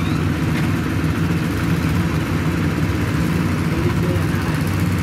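Diesel engines of several two-wheel hand tractors running steadily, giving a continuous low rumble.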